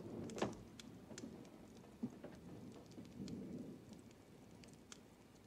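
Faint scattered ticks and soft rustling over low room noise.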